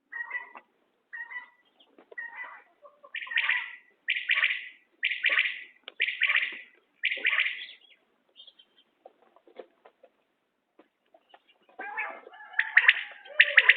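Common quail calling: a few faint short calls, then a run of five calls about one a second, a pause, and louder calls again near the end.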